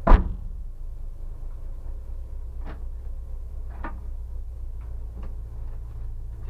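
Honda Civic EG6's B16A2 four-cylinder engine idling steadily, heard from inside the stripped, caged cabin. A loud knock comes right at the start, and a few light clicks and knocks follow from the occupants moving about in their seats.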